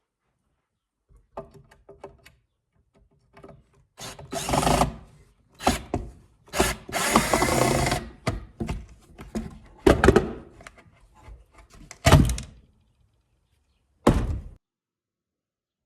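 A power tool working on wood in short, irregular bursts, some a second or more long, with knocks in between.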